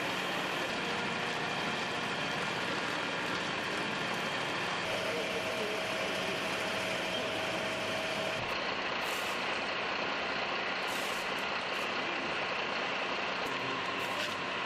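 Heavy truck engine running steadily under a continuous noisy din. A steady tone rises above it for about three seconds in the middle.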